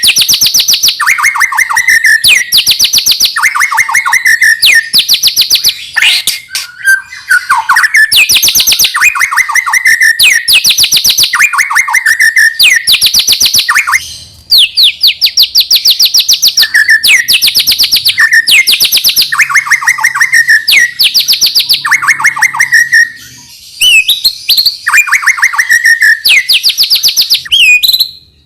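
White-rumped shama (murai batu) singing loudly and continuously, repeating phrases that alternate a fast high trill with a lower trill ending in a rising note, with a couple of brief pauses. It is lure song of the kind used to prompt captive shamas to sing.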